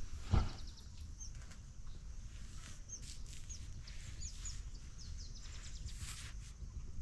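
Small birds chirping, a scattered series of short high chirps, with a thump about half a second in over a steady low rumble.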